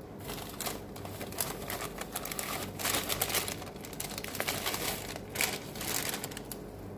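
Clear plastic bag of cake-mix powder crinkling in irregular crackles as it is shaken and emptied into a glass mixing bowl.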